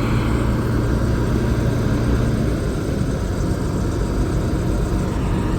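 Large farm diesel engine running steadily at an even speed with a low hum.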